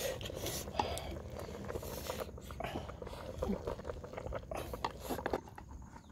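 Wooden spoon stirring whole chicken in a steel pot of hot broth, with irregular scrapes and knocks against the pot.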